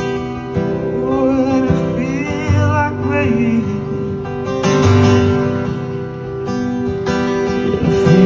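Acoustic guitar played live as the accompaniment to a song, with no sung words in this passage.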